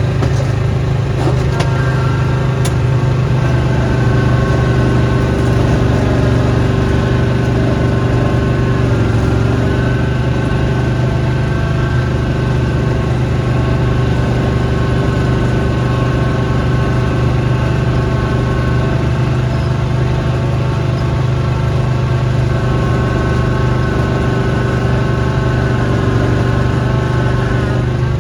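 Engine of a snow-blowing machine running steadily, its pitch dipping briefly about a third of the way in and again near the end.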